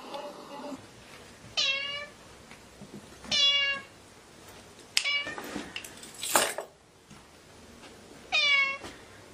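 A kitten meowing three times, each call short, high and falling in pitch at its end. Between the second and third meow come a sharp click and two short bursts of noise, the second of these the loudest sound.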